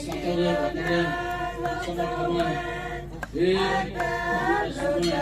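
A group of voices singing or chanting together without instruments, in long held notes, with a short break about three seconds in.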